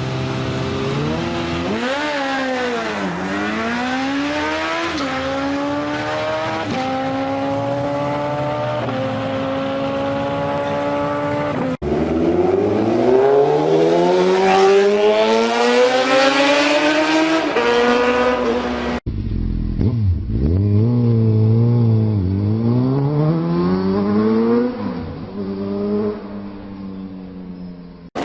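High-revving motorcycle engines in three short clips. In the first, the engine note climbs and drops back at each gear change. In the loudest middle clip it climbs for several seconds, and in the last it revs up and down in blips and fades near the end.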